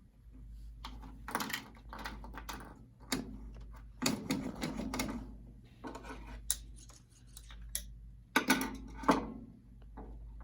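Foley effects performed live with improvised classroom props: an irregular series of knocks, taps and short scrapes, unedited, with a steady low hum under them. The two loudest hits come late on, about a second apart.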